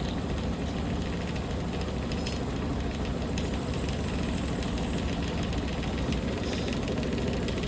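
Washing machine drum in a fast spin cycle, a steady running hum with a fine, rapid ticking.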